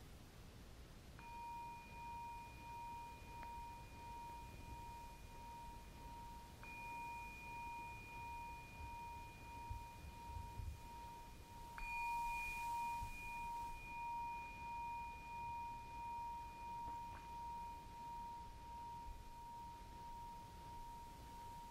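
Small metal singing bowl struck with a mallet several times, each strike renewing a long ringing tone that wavers slowly in loudness. The strongest strike comes about halfway through.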